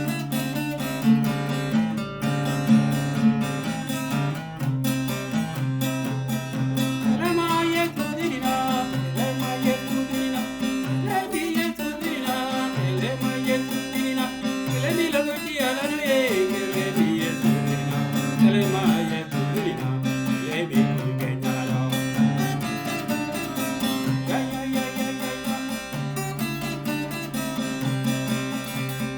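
A song played as background music: strummed guitar over a steady bass line, with a bending melody line through the middle.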